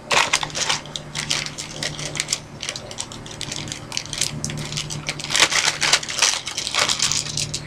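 Board game components and packaging being handled: dense, irregular crinkling and clicking, busiest a little past the middle, over a steady low hum.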